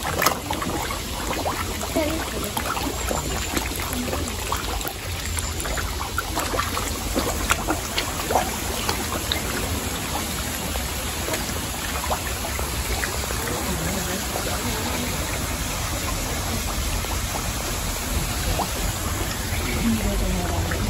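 Pond water splashing and trickling as a dense crowd of feeding carp churns the surface, with many small splashes and slaps scattered throughout.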